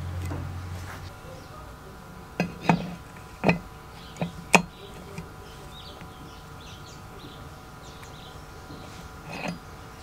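About five sharp metallic clinks a couple of seconds in, as an adjustable wrench is set against the brass hex nut of a kerosene stove's burner on its brass tank. A softer knock follows near the end, and a low hum fades out in the first second.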